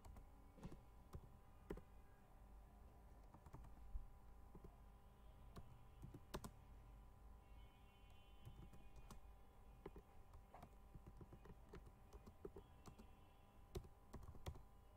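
Faint keystrokes on a computer keyboard, irregular and spaced out as a sentence is typed slowly, over a low steady hum.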